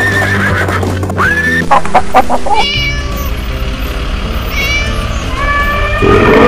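Cartoon animal calls over children's backing music, including a cat meowing. Near the end a louder, steadier sound comes in.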